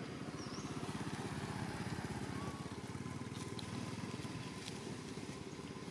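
A small engine running steadily, heard as a rapid low pulsing.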